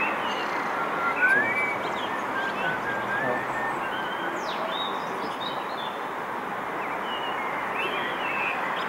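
Small birds chirping and twittering over a steady background rumble from the trains approaching in the distance.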